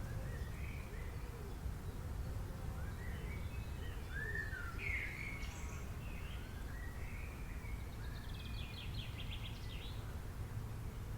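Several forest songbirds chirping and calling in scattered short phrases, with a quick trill of repeated notes about three-quarters of the way through, over a steady low rumble.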